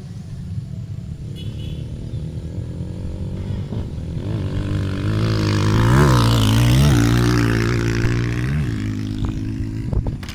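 Small dirt bike's engine riding past close by on a dirt track. It grows louder to a peak about six seconds in, with several short throttle rises in pitch, then fades away.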